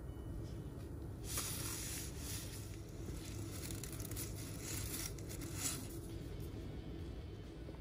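Water boiling in a pot, a steady low bubbling rumble. From about a second in until near six seconds, a crackly hiss as a bundle of dry capellini angel hair pasta is lowered into the boiling water.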